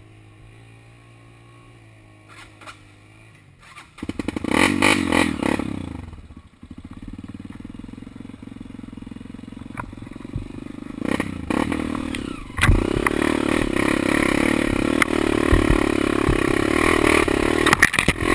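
An engine starts about four seconds in and runs loudly for a couple of seconds, then settles to a steady run and picks up louder again about two-thirds of the way through.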